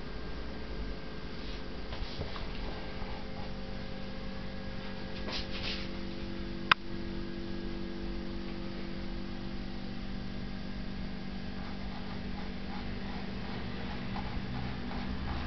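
Steady low electrical hum over quiet room noise, with one sharp click a little after halfway.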